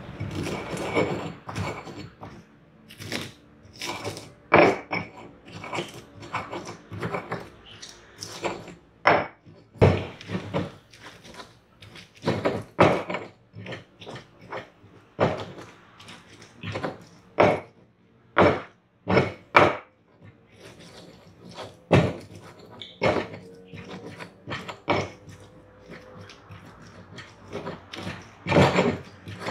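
Pestle knocking and grinding in a cobek mortar, with irregular sharp knocks about once or twice a second as ingredients are pounded.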